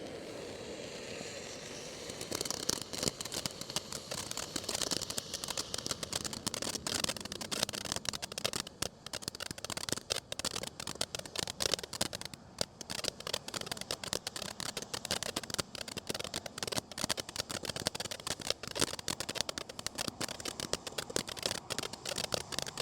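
World Class Fireworks 'Hive Mind' consumer fountain firework burning with a steady hiss. From about two seconds in it turns to a dense, fast crackling.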